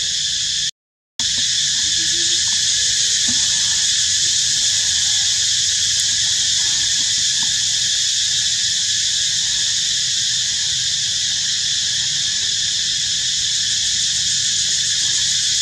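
Steady, loud, high-pitched insect chorus, cicadas shrilling in the trees, with a few faint short calls about two to three seconds in. The sound cuts out completely for half a second about a second in.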